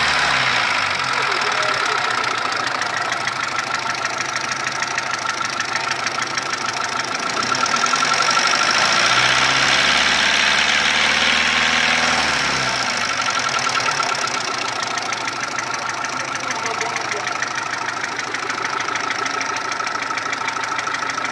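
Mitsubishi 1.3-litre petrol engine running with a fast, even tapping, the abnormal noise that appeared after an overhaul with a new cylinder head and block. It drops back from a rev at the start, idles, and is revved up and let back down once from about eight to thirteen seconds in.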